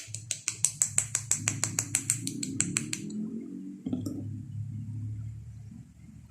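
A rapid, even run of sharp small clicks, about seven a second, that stops after about three seconds. A single knock comes about a second later, over low rustling handling noise.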